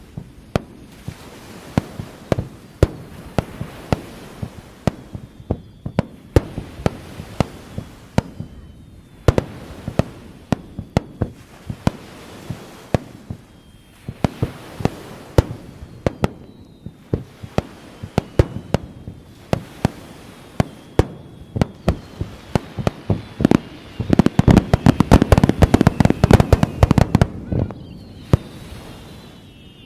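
Aerial fireworks display: shells bursting one after another in loud sharp bangs, with faint whistles. Near the end comes a dense rapid barrage of bursts.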